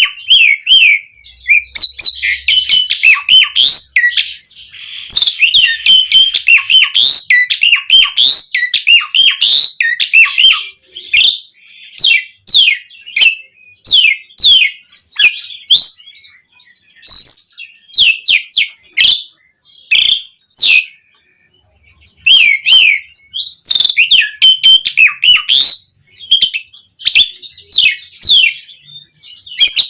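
Jalak uren, a pied starling, singing loudly in a fast, varied run of chirps, whistles and harsh notes, with a couple of short pauses.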